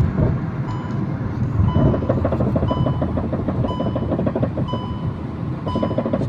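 Fast rhythmic knocking and rumble from a car's front left wheel hub whose hub nuts have been loosened, a dangerous fault that can let the wheel come off while driving. A short high electronic beep repeats about once a second from about a second in.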